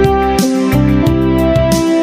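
Background music: an instrumental passage of a song without singing, with held notes over a changing bass line and a steady, quick ticking beat.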